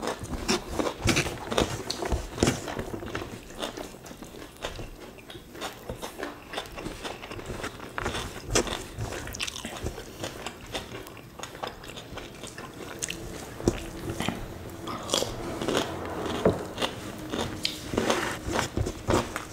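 Two people eating rice and beef sambal by hand close to the microphone: wet chewing with many irregular mouth clicks and smacks.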